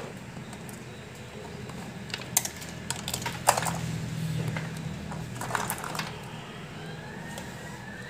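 Metal hand tools clicking and clinking as they are handled and rummaged in a tool case, with a few sharp clicks (the loudest about three and a half seconds in), over a low steady hum.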